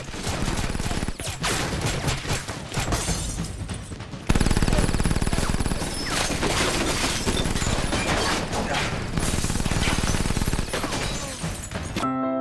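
Loud, dense crackling noise full of rapid sharp cracks, getting louder about four seconds in. It cuts off just before the end, where soft piano music begins.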